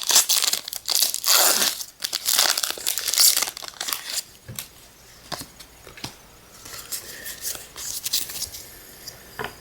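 A foil Pokémon booster pack wrapper crinkling and being torn open for about four seconds, followed by quieter rustling and a few light clicks as the cards are handled.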